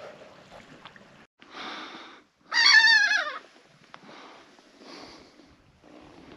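An animal's call: one loud, wavering cry falling in pitch, lasting under a second, about two and a half seconds in. A shorter burst of hiss comes just before it.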